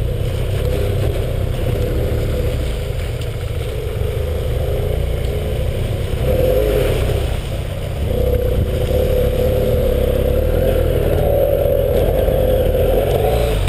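BMW parallel-twin adventure motorcycle engine running under way off-road, its note rising and falling with the throttle. Heard from a helmet-mounted camera, with heavy wind rumble over the engine.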